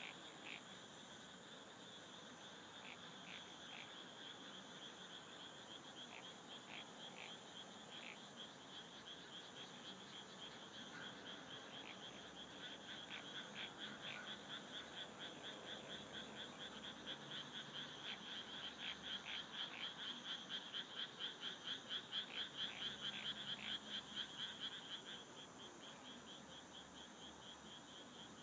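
Frogs calling on a summer night: scattered croaks at first, then a fast run of pulsed croaks that grows louder and stops a few seconds before the end, over a steady high chorus of insects.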